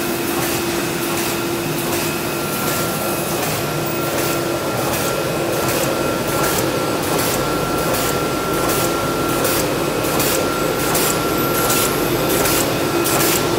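Plastic wicket bag making machine running: a steady mechanical hum and whir, with a regular beat of short sharp strokes about two to three times a second, which grows clearer in the second half.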